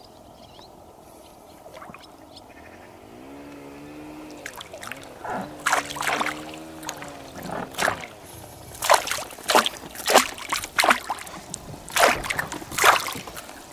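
A hooked pike thrashing at the surface beside a boat: a string of sharp splashes that start about a third of the way in and grow louder and more frequent toward the end.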